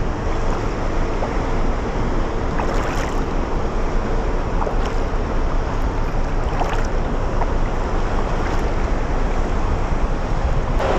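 Steady low rumble and faint hum of a large lake freighter passing close by, with wind on the microphone. A few light splashes of a wooden Greenland paddle come about every two seconds.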